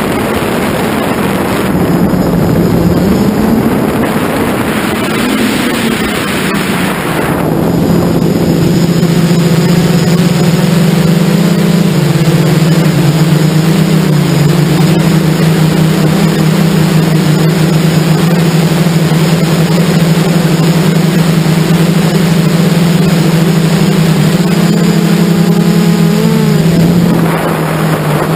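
Multirotor FPV drone's motors and propellers, heard from its onboard camera. For about the first seven seconds wind rushes over the microphone; after that the steady hum of the motors takes over, shifting a little in pitch as the throttle changes. Just before the end it briefly drops in level and pitch, then comes back.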